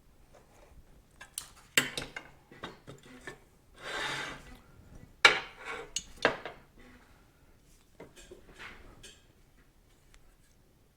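Metal parts and hand tools clinking and knocking on a workbench, with a short scrape or rub about four seconds in. These are the handling sounds of fitting bolts into the newly sleeved motorcycle swing arm.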